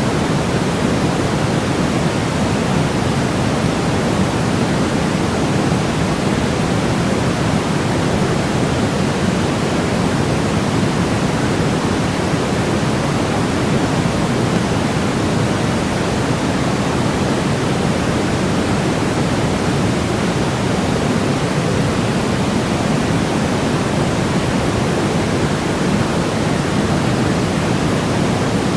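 Steady white noise: an unchanging, even hiss with most of its weight in the low and middle range and no rhythm, break or change.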